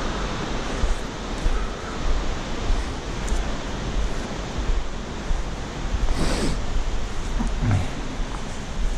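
Steady rushing of a river and waterfall in a ravine, with wind buffeting the microphone in low gusts. A brief swish stands out about six seconds in.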